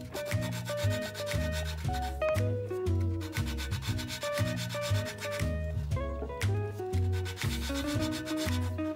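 Valve being hand-lapped into its seat in a Honda Accord V6 cylinder head: a suction-cup lapping stick is twisted back and forth, and the lapping compound gives a repeated rasping rub. Background music with a bass line and guitar plays throughout.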